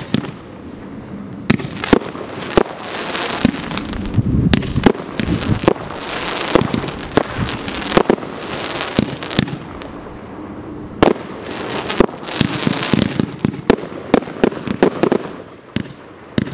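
Fireworks cake firing: a rapid, irregular string of sharp bangs as shot after shot launches and bursts, with a rushing noise between the reports.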